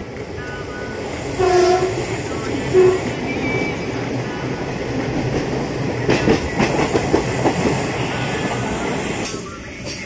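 A train running, with steady rumbling and the rhythmic clatter of wheels over the rail joints. About one and a half seconds in there is a brief pitched tone.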